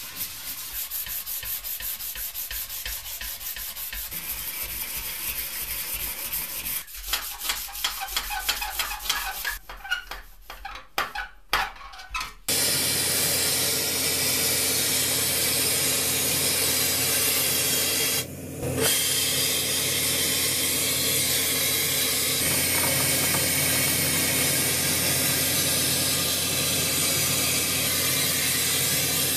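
A toy-car body being hand-sanded with 800-grit sandpaper: quick, even rubbing strokes that turn irregular and louder in the last few seconds. Then a powder-paint spray gun gives a steady hiss, broken once by a short pause.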